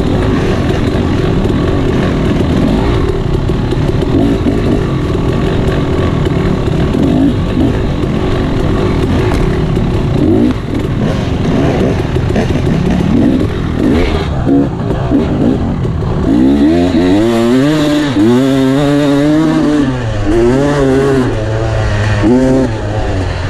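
Dirt bike engine running hard while being ridden, a dense, busy engine sound. About two-thirds of the way in it changes to a clearer note that revs up and drops back several times as the bike accelerates and shifts.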